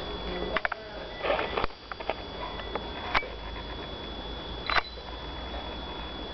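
Handheld camera handling noise: a few scattered soft knocks and clicks, the sharpest about three and five seconds in, over a steady low hum and a faint high-pitched whine.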